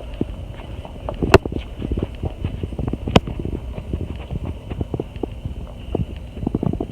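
A run of irregular knocks and clicks, with two sharp, loud clacks about two seconds apart near the start.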